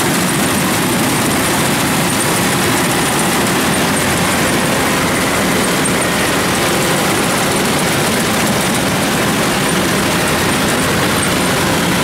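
Kubota DC-105X combine harvester running as it cuts rice, its diesel engine and threshing machinery giving a steady, loud drone.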